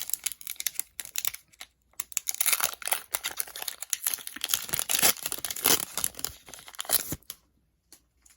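Foil wrapper of a Pokémon card booster pack being torn open and crinkled by hand, a dense crackle that stops abruptly about seven seconds in.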